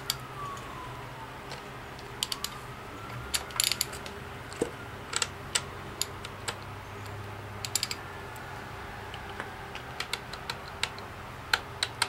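Irregular metal clicks and clinks as a connecting rod cap is worked loose off a small-block Chevrolet crankshaft journal, several in quick clusters. A faint distant siren wails, falling and rising, behind them.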